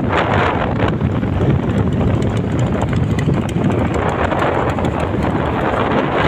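Steady rush of wind buffeting the microphone of a moving motorcycle, with engine and road noise underneath.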